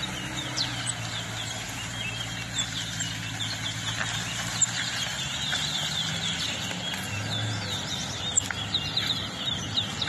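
Caged towa-towa seed finches singing in a song contest: quick, repeated short chirps and twittering phrases, each song being tallied by the referee. A steady low hum runs underneath.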